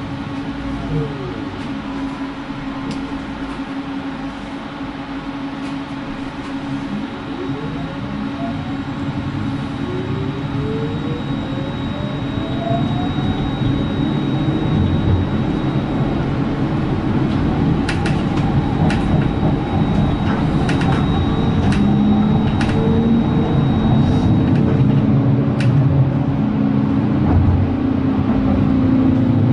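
Electric tram running on street track and gathering speed, its running noise growing steadily louder, with a few rising whines from the drive as it accelerates and a steady high whine. A few sharp clicks come in the second half.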